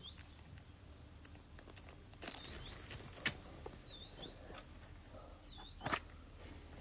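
A small bird chirping faintly in the background, a short dipping-and-rising chirp every second or so, along with two sharp clicks, one about three seconds in and one near six seconds.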